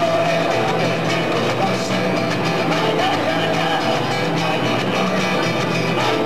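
Live band music: a song played on acoustic guitar, electric bass and keyboard, running steadily without a break.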